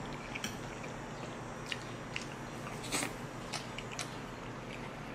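Close-miked chewing of a mouthful of macaroni with meat sauce, with a few short sharp clicks scattered through it over a steady background hiss.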